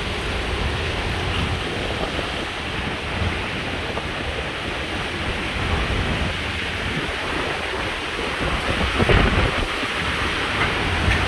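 Heavy wind blowing steadily in uneven gusts and buffeting the microphone, with the strongest gust about nine seconds in.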